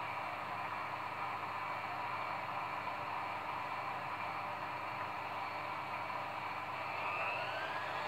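Front-loading washing machine running, a steady whooshing of water and laundry turning in the drum. Near the end a motor whine starts and rises in pitch as the drum speeds up.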